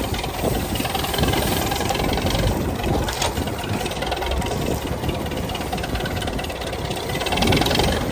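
YuMZ tractor's diesel engine running under load as it pulls through sugarcane, a steady knocking engine clatter that grows louder briefly near the end.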